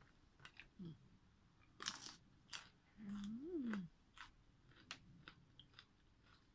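Mouth sounds of eating by hand: faint chewing, crunching and lip smacks, with a hummed "mmm" of enjoyment about three seconds in that rises and falls in pitch.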